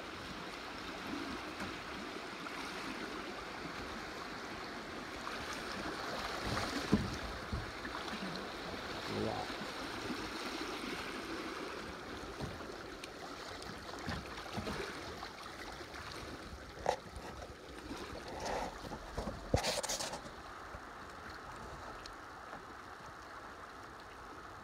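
River water rushing over shallow riffles around a drifting kayak, a steady wash. A few short louder splashes and knocks come through, the strongest about twenty seconds in.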